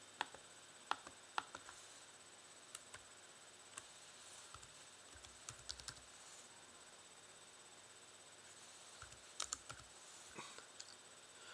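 Laptop keys being typed, a few scattered clicks and short runs of keystrokes with pauses between.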